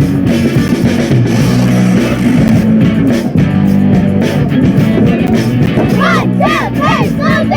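Background rock music led by guitar, steady and full throughout; near the end a run of quick notes that bend up and down.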